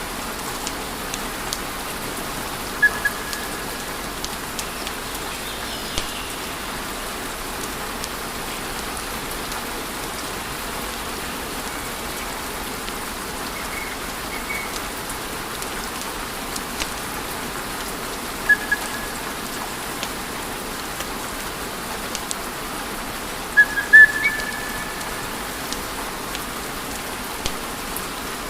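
Wood fire crackling and hissing steadily, with scattered sharp pops from the burning logs. The loudest pops come near the start, about two-thirds in, and a double pop near the end, several of them followed by a brief high whistle.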